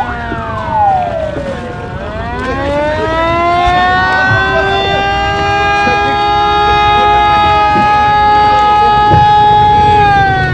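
Emergency-service siren in wail mode: the pitch falls quickly at the start, rises over about two seconds, holds steady for about six seconds, then starts to fall again near the end. A second siren's tone glides down briefly at the start.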